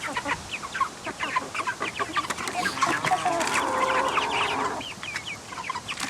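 Flock of chickens clucking and peeping, many short calls overlapping, with one longer held call in the middle.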